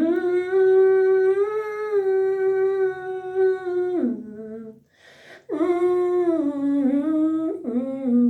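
A single unaccompanied voice humming a wordless worship melody: a long held note for about four seconds that drops at the end, then after a short break a second phrase stepping down in pitch.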